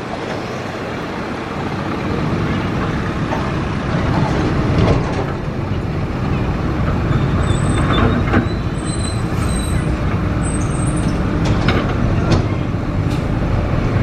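Diesel engine of a long-reach hydraulic excavator running steadily under load, louder from about two seconds in, as it loads soil into a dump truck. Several sharp knocks and clunks come through in the second half, as the bucket unloads into the truck bed.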